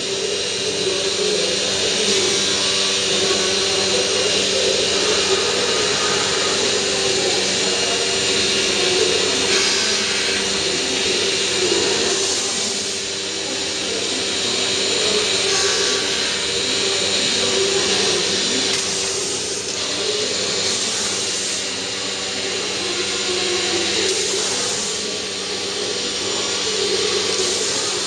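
A multi-head CNC wood router at work on a board: a steady spindle and dust-extraction drone with cutting noise. It swells and eases every few seconds as the head moves over the panel.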